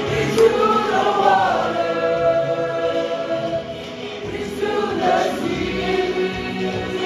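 Choir singing a gospel song, many voices in sustained held lines.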